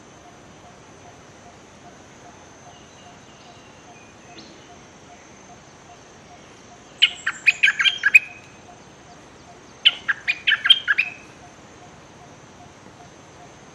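Bulbul calling in two bursts of rapid, chattering notes, each just over a second long and a couple of seconds apart, about halfway through. This is the scolding call of a caged decoy bulbul. A faint even ticking runs underneath throughout.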